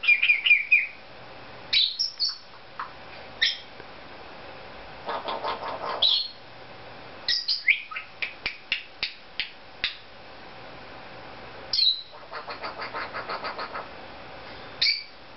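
Cape parrot vocalising: a string of sharp clicks and short squeaky whistles that drop in pitch. It also gives two bouts of rapid, evenly pulsed chattering, about five seconds in and again near twelve seconds.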